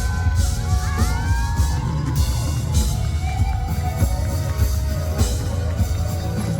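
Live band music playing loudly in a concert hall, with the audience screaming and cheering over it.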